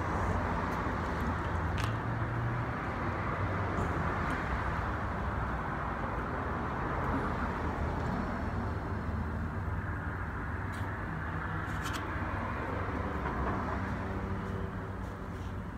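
Steady road traffic noise, a low rumble and hiss, with a few faint light clicks.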